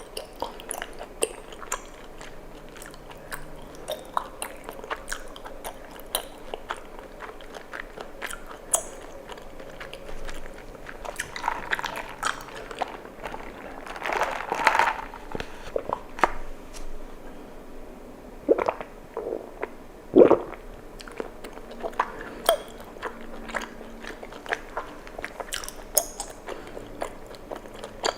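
Close-miked chewing of chewy tapioca pearls, with many small wet, sticky mouth clicks. A few louder gulps come about two-thirds of the way through.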